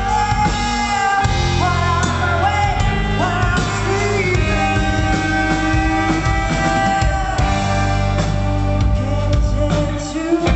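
Rock band playing live: guitar and a steady bass line under a sung melody that bends and wavers in pitch.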